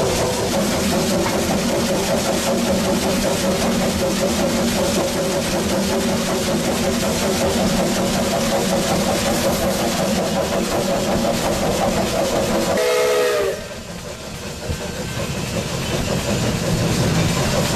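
Steam locomotive whistle blowing one long, steady blast over the engine's running noise, sounded for a road crossing. Its pitch sags as it shuts off about thirteen seconds in, after which the locomotive's running rumble and steam hiss build again.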